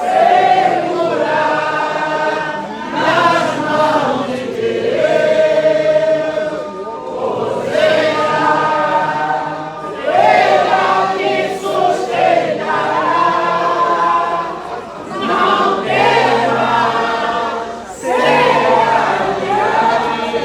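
A choir or group of voices singing together, in sung phrases a few seconds long with short breaks between them.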